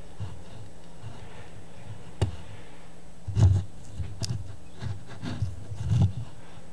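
Hand-worked homemade magnet motor rig: a sharp click about two seconds in, then several irregular knocks and rubs as the magnet is pushed toward the rotor and pulled away, over a steady low hum.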